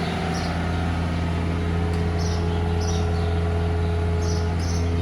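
Engine of a farm machine running steadily while manure pack is loaded into a spreader, with short high chirps now and then.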